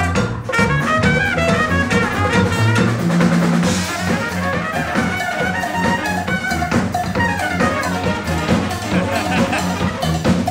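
Live funky Latin jazz from a brass-and-drums ensemble: trumpet and saxophones playing over a tuba bass line, driven by a drum kit and percussion drums.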